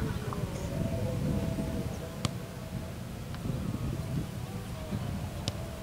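Outdoor football-pitch ambience: a low, uneven rumble of wind on the microphone under faint distant voices and tones, with two sharp knocks about two and five and a half seconds in.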